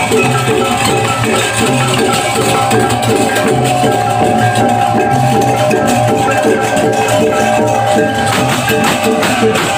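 Balinese marching gamelan (baleganjur) played live: slung drums, clashing hand cymbals and gongs in a fast, steady interlocking beat under ringing gong tones. The cymbal clashes grow stronger near the end.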